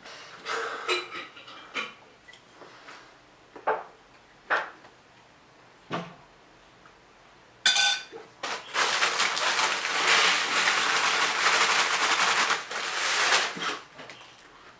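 Scattered clicks of a fork against a plate at a table, then a sharp sound about eight seconds in followed by about five seconds of loud crackling noise.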